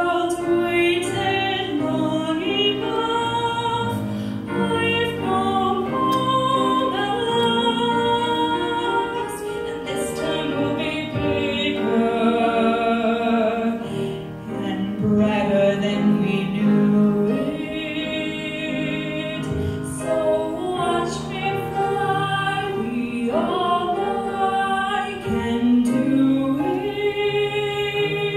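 A woman singing classical art song in an operatic style with wide vibrato on sustained notes, accompanied by piano.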